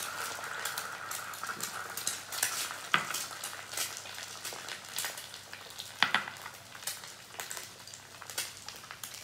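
Eggs frying in hot oil in nonstick pans: a steady sizzle with many small crackling pops, from too much oil in the pan. A couple of sharper clicks about three and six seconds in.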